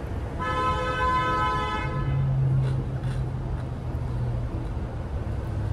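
A vehicle horn gives one steady toot lasting about a second and a half, over a low rumble of street traffic. A low, steady engine hum follows for a couple of seconds.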